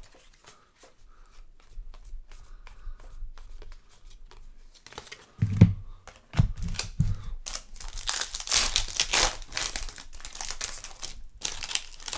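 Foil trading-card pack wrapper being handled, torn and crinkled. Faint clicks at first and a few dull thumps about halfway, then several seconds of loud crinkling.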